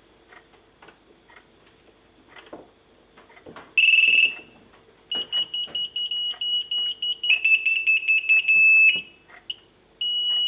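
Quadcopter flight controller's buzzer beeping on power-up: one high-pitched beep about four seconds in, then a run of rapid beeps for about four seconds, dropping slightly in pitch partway, and another beep near the end. The buzzer works through a direct soldered connection that bypasses the flight controller's faulty buzzer pins.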